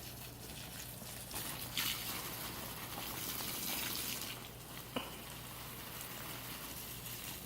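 Faint trickling water, with a single sharp click about five seconds in.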